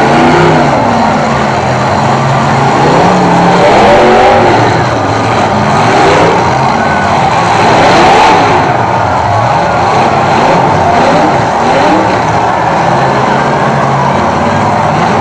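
Several demolition derby cars' engines revving hard at the same time, their pitches rising and falling over one another.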